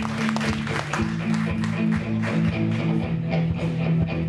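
Live band playing: guitar strumming over steady sustained low chords, with a regular beat.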